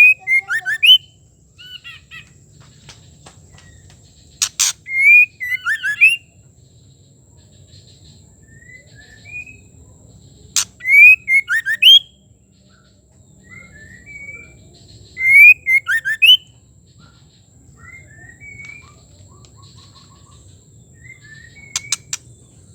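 Female white-rumped shama calling in short bursts: each is a sharp crack followed by a few quick rising whistled notes, coming about every five seconds, with softer chirps in between.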